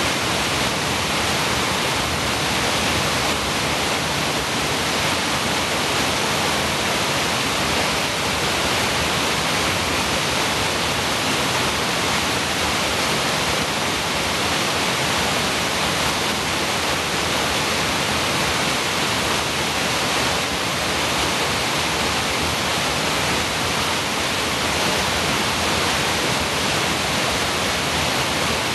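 A small waterfall on a rocky creek: a steady, loud rush of falling water.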